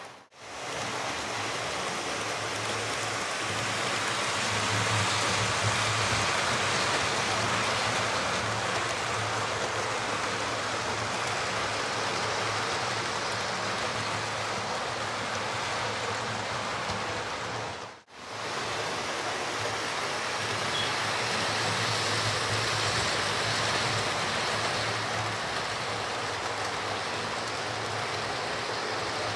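Model trains, including Class 43 HST models, running on the layout's track: a steady whirring hiss of motors and wheels with a low hum, swelling as a train passes close. The sound breaks off for an instant a little past halfway.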